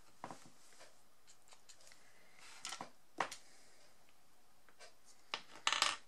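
Small handling sounds of craft tools on a desk: a few short clicks and rubbing scrapes spread apart, then a louder quick cluster of clicks and scrapes near the end.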